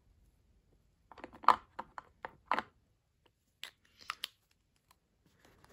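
Small clicks and taps of a Rouge Dior lipstick refill being pulled out of and pushed into its metal lipstick case: a cluster of clicks about a second in, and a few more near four seconds.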